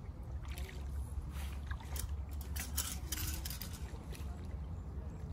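Hooked trout splashing and thrashing at the surface right at the bank as it is brought in, a cluster of sharp splashes in the middle, over a steady low rumble.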